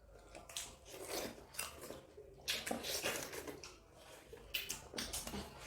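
Ripe watermelon being bitten and chewed: a string of soft, irregular wet bites and chewing sounds, with light knocks of dishes or cutlery.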